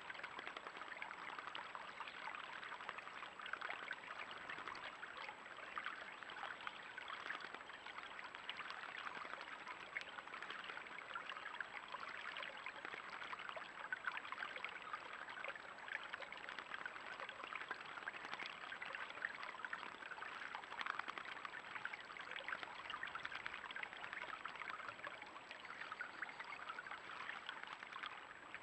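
Shallow stream running and trickling over stones and mud, a steady even water sound.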